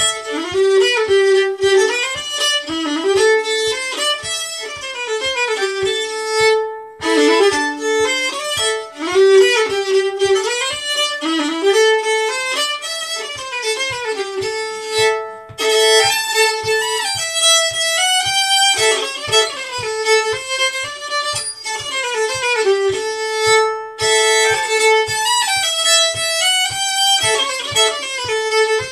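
Solo fiddle playing a lively old-time tune in quick bowed notes, with short breaks between phrases. Underneath runs a steady low tapping in time with the tune.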